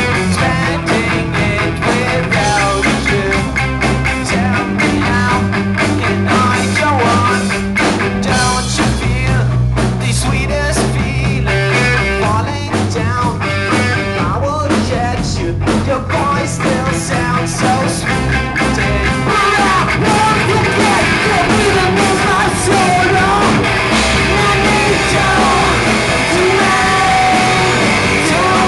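A live rock band playing loudly: electric guitars and drums, with voices singing over them.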